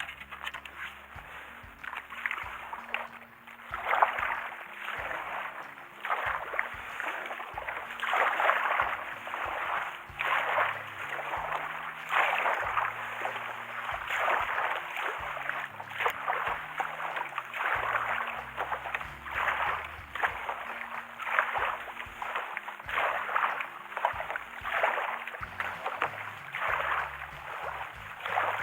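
Kayak paddle strokes in the sea: a rhythmic swish and splash of water, one stroke about every one and a half to two seconds.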